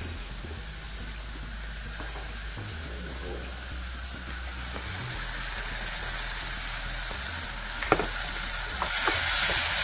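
Onion, garlic, chili and freshly added chopped tomatoes sizzling as they fry in a pot, stirred with a wooden spatula. There is a sharp knock about eight seconds in, and the sizzle grows louder near the end.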